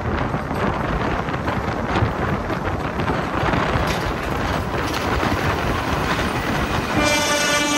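Passenger train with ICF coaches running at speed: a steady rush of rail and wind noise with wheel clicks over the rail joints. About seven seconds in, a steady pitched tone starts suddenly.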